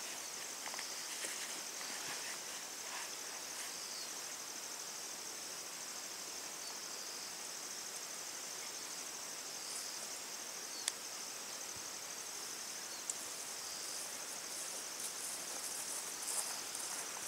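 Insects chirring steadily in a continuous high-pitched drone. A single sharp click about eleven seconds in, and light rustling near the end.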